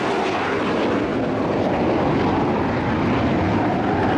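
Steady rushing noise from the jet engine of a Chengdu J-10 fighter operating close by on the airfield.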